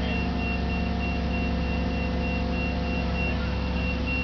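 Heavy diesel engine of the lifting crane running steadily, with a high warning beep repeating evenly over it.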